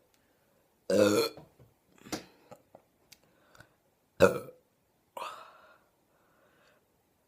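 A person burping several times in short separate burps, the loudest about a second in and about four seconds in.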